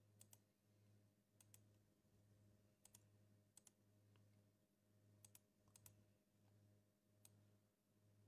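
Faint computer mouse clicks, mostly in quick pairs of press and release, about six times, over near silence with a faint steady low hum.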